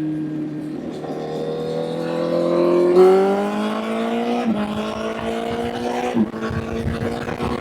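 Honda CBR1000 motorcycle's inline-four engine under way, its note climbing over the first few seconds, then dropping sharply twice, about four and a half and six seconds in, as it shifts up through the gears.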